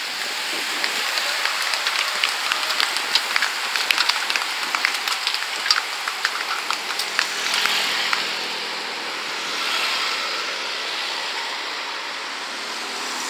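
A peloton of racing bicycles passing at speed: tyre hiss with many quick clicks of freewheels and gear changes. In the second half, motorbikes and a team car drive past.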